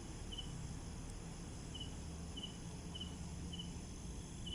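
A cricket chirping: short, high chirps recurring every half second to a second, faint over a low, steady background noise.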